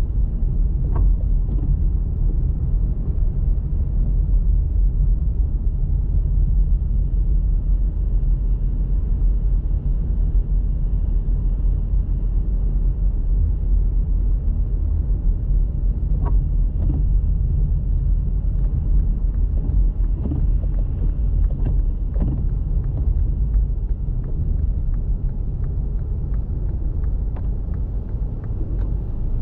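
Car driving: a steady low road and engine rumble, with a few faint knocks scattered through it.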